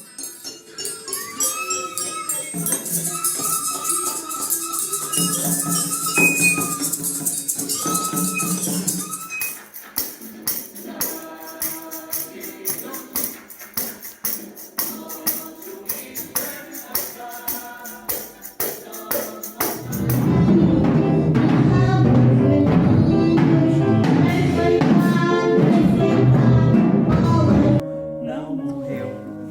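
Music with a high jingling percussion over a held high note. It turns sparser and rhythmic about ten seconds in, then grows louder and fuller about twenty seconds in before dropping back near the end.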